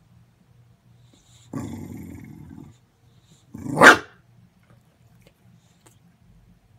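English bulldog growling low for about a second, then giving one sharp loud bark a little after the middle.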